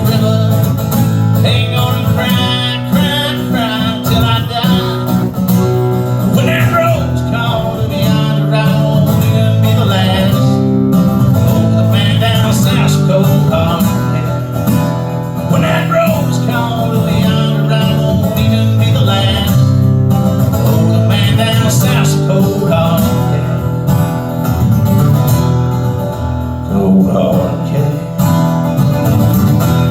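Country song's instrumental break, led by picked acoustic guitar over a steady low accompaniment, with no lyrics sung.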